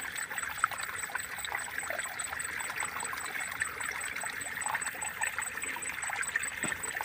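Shallow water trickling along a small ditch: a steady light babble with many small splashy ticks.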